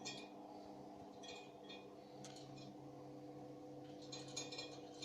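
Pellet stove's fan running with a faint steady hum, with a few light metallic clinks, pellets dropping into the metal burn pot during ignition.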